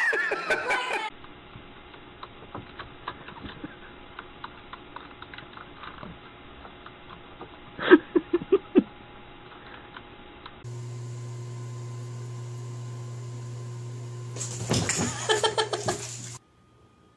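Light, irregular clicking of a computer keyboard being tapped, broken about eight seconds in by a short loud run of four quick laugh-like pulses. Later a steady low hum sets in, with a burst of laughter near the end.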